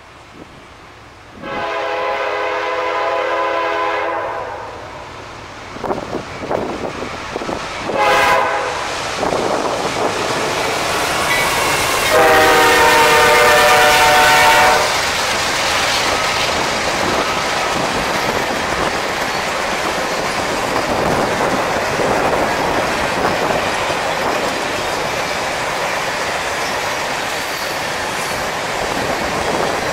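Horn of the lead CSX GE freight locomotive sounding for the grade crossing: a long blast, a short one, then a final long blast, the loudest, as the two-unit GE lashup passes. After that comes the steady rumble of the loaded trash cars rolling by, with wheels clicking over the rail joints.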